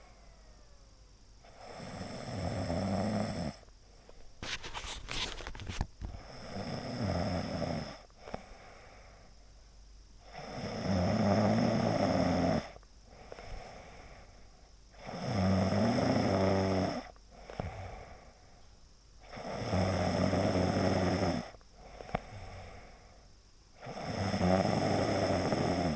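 Heavy snoring in slow, even breaths: a loud rasping snore about two seconds long roughly every four to five seconds, six in all. A few sharp clicks come between the first and second snores.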